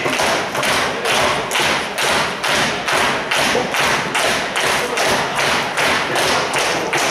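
Crowd clapping in unison, a steady beat of about two claps a second.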